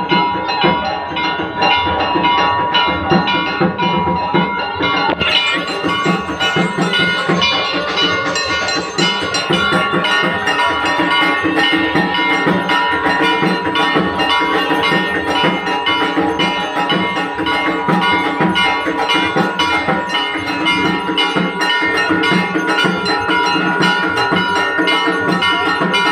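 Brass temple bells ringing continuously, struck rapidly again and again so their tones overlap into a steady clangour, which gets brighter about five seconds in.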